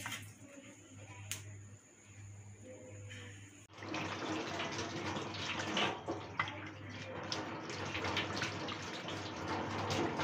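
About four seconds in, water from a tap starts running and splashing into a stainless steel kitchen sink, with hands rinsed under the stream near the end.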